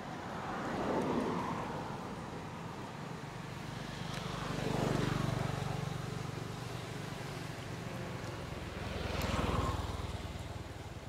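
Vehicles passing by three times, each one swelling up and fading away, with a steady low engine hum under the middle pass.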